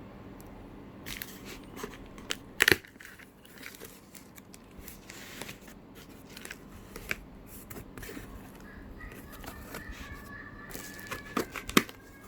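Packaging of a diecast model car being handled and opened: rustling and crinkling with scattered clicks and knocks, the sharpest about three seconds in and again near the end.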